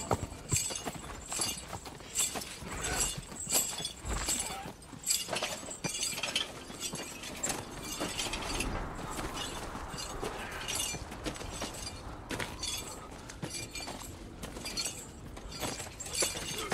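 Iron shackle chains clinking and rattling over and over as people walk in them, with footsteps over dry leaves and a horse walking.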